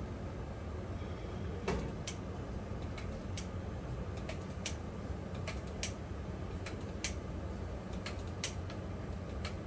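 Many sharp metallic clicks at uneven intervals, roughly one or two a second, with a louder knock about two seconds in: the spring-loaded trigger of a stainless-steel batter dispenser snapping open and shut as batter is portioned into taiyaki moulds. A steady low rumble runs underneath.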